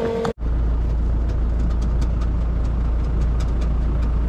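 Steyr 9094 tractor's diesel engine running steadily at idle, driving the Trioliet feed mixer wagon's augers at idle speed, with faint scattered ticks. The sound comes in abruptly after a momentary break near the start.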